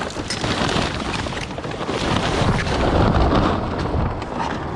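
Close rustling and clattering as scrap, including copper cable, is pulled about and handled right at the microphone: dense scraping noise with many small knocks and rattles.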